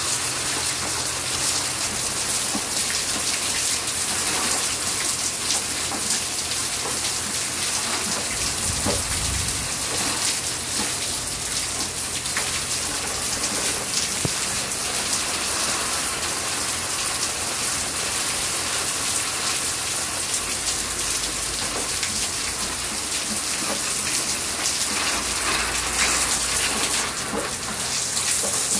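Monsoon rain pouring down steadily, a dense, even hiss of countless drops striking the ground and nearby surfaces.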